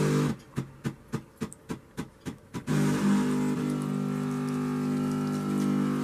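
Siemens EQ.300 automatic coffee machine brewing. After a brief hum there are about two seconds of rapid clicks, roughly four a second. Then, about halfway through, its pump starts a steady hum as coffee runs into the cup.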